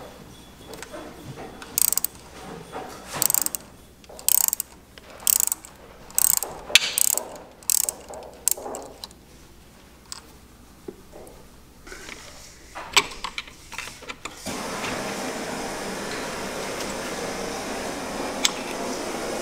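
Socket ratchet clicking in short bursts, stroke after stroke, as it backs off the water-pump impeller nut on a Honda GL500 engine. From about two-thirds of the way in, a steady even hiss takes over.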